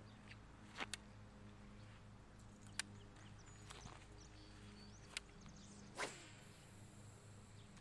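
A fishing rod whipping forward in a cast about six seconds in, a short swish, followed by a faint high steady whir as the line pays out. A few faint clicks come before the cast.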